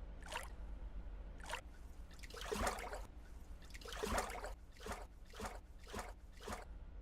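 Faint water sounds: a run of short, soft drips and small splashes, about one a second and irregularly spaced, with the loudest a little over halfway in.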